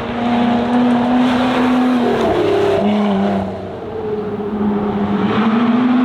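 Lotus Exige engine running hard: it holds a steady note, drops in pitch about two seconds in, eases off briefly past the middle, then climbs in pitch again as it accelerates near the end.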